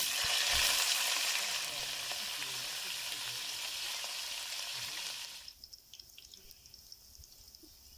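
Food frying in hot oil: a loud, even sizzle that starts suddenly at the beginning and cuts off abruptly about five seconds in, leaving only a few faint ticks.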